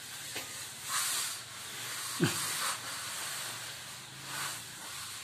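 Loose soil being scraped and shuffled: a few short, gritty hissing scrapes about a second in, again midway and once more near the end, over a faint steady hiss.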